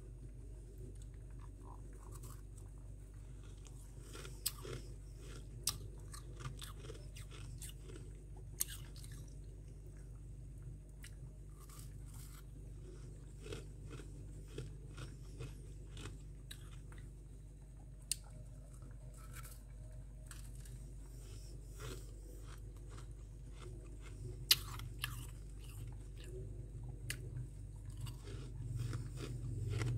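Crunchy chewing of powdery freezer frost, with sharp crackling bites scattered through and a steady low hum underneath.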